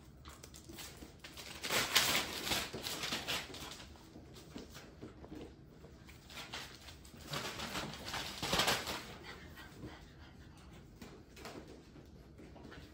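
Bullmastiff puppies play-wrestling: scuffling, paws on a hard floor and small puppy grunts, coming in bursts, loudest about two seconds in and again about eight seconds in.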